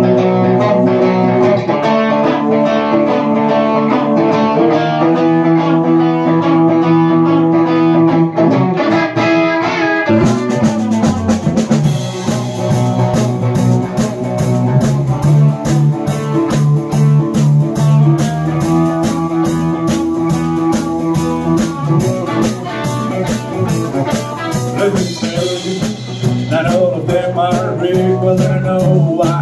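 A blues-rock trio playing live. Hollow-body electric guitar and electric bass play alone for about ten seconds, then the drum kit comes in and the full band plays on.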